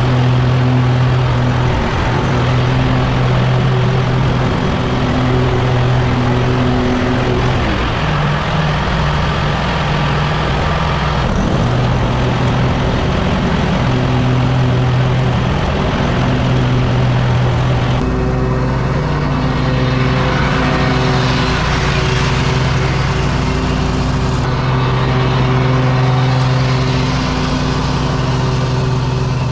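Lawn mower engine running steadily, its pitch shifting slightly at about 8 and 18 seconds in.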